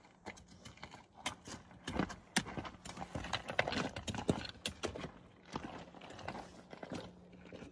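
Hikers' footsteps and trekking-pole tips clicking and knocking on a rocky trail as they walk past close by, an irregular run of sharp taps that is loudest around the middle.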